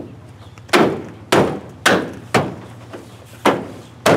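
A gloved hand pounding a plastic bed rail cap down onto a Ford F250 pickup's bed side to seat it: six sharp thumps at an uneven pace, about two a second.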